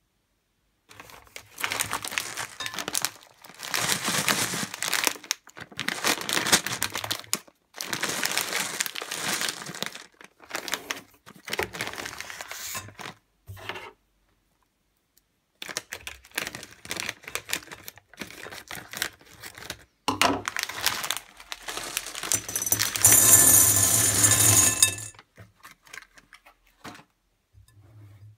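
Plastic candy bags crinkling and tearing open, in repeated bursts. A few seconds before the end, candy-coated chocolates are poured in a dense rattling stream into a glass bowl.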